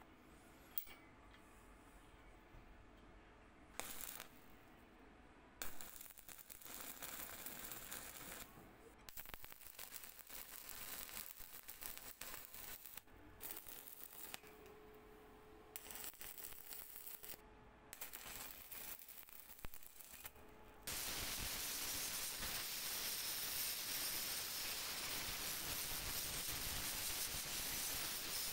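Stick arc welding on a steel tube frame with an inverter welder, the arc sizzling in runs of a few seconds that stop and start. About 21 s in, an angle grinder cuts in louder with a steady hiss, grinding the weld flush on the tube end.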